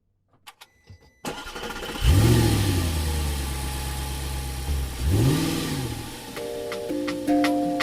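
An engine starting: it catches about two seconds in and runs steadily, then revs up and back down once. Near the end a tune of bell-like mallet notes comes in.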